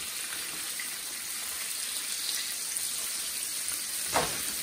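Blacktail deer steaks frying in hot fat in a nonstick pan, a steady sizzle. A short knock a little after four seconds in as a fork works the steak against the pan.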